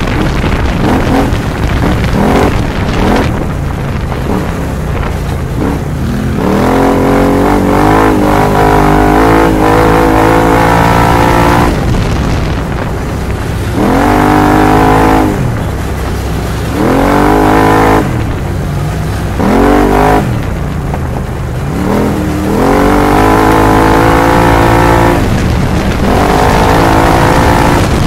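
Arctic Cat Wildcat X side-by-side's V-twin engine revving hard under racing load, its pitch climbing in long sweeps and dropping away again several times as the throttle is opened and closed.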